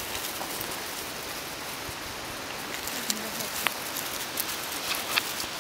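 Dry leaf litter rustling and crackling underfoot on a forest floor, a steady patter with scattered sharp crackles and twig snaps.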